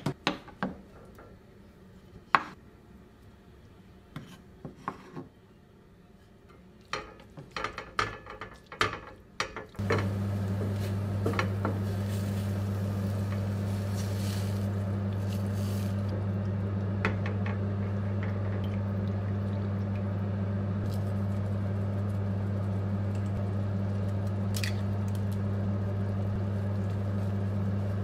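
Cooking in a stainless steel frying pan: scattered knocks and clatter of a wooden spoon and food against the pan. About ten seconds in, a steady low hum starts and holds, and water is poured into the pan a few seconds later.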